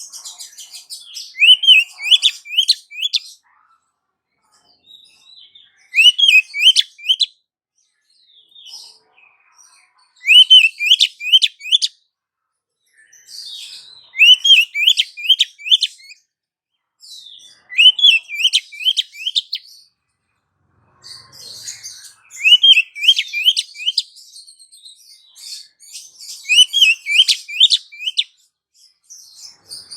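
Female oriental magpie-robin calling: short bursts of quick, rising, chirping notes with higher chatter above them, repeated about every four seconds, seven times.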